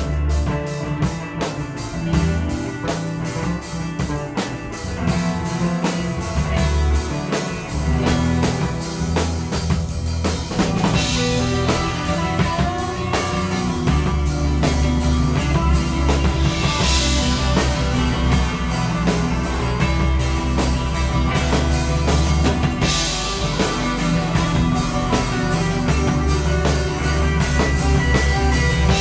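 Live psychedelic rock band playing an instrumental passage: drum kit driving a heavy bass line, with cymbal crashes about every six seconds in the second half.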